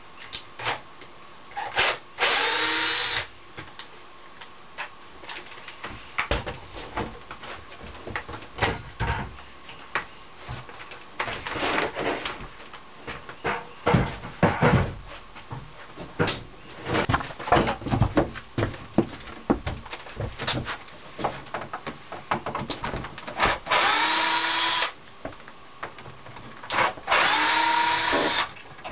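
A small power-tool motor runs in three short bursts of about a second each, with many sharp clicks and knocks between them.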